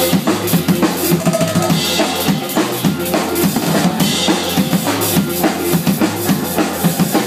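A Mapex drum kit played live at a fast, busy pace: rapid snare, tom and bass-drum hits under a constant wash of cymbals.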